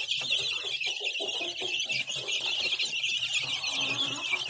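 A flock of young chicken chicks peeping constantly in a dense, overlapping chorus of high chirps while they peck feed from a plastic trough feeder, with many quick beak taps.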